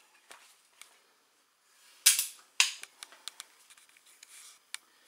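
A crossbow shot: the string releasing with a sharp crack, then about half a second later a second sharp crack as the bolt strikes the target, followed by light clicks.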